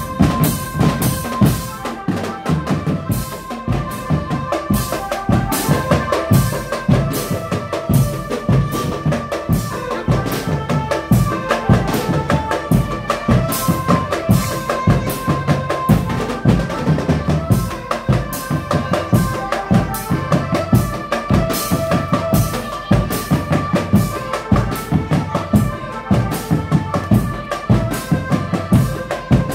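Drumband of marching snare drums, tom drums and bass drums playing a fast, dense rhythm, with a melody line running over the drums.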